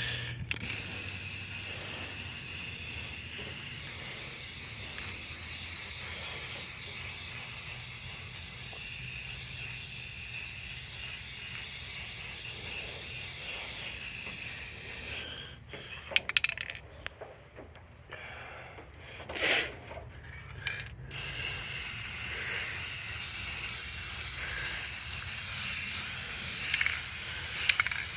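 Aerosol spray-paint can spraying blue paint in a long steady hiss, stopping for about six seconds partway through with a few short knocks, then spraying again.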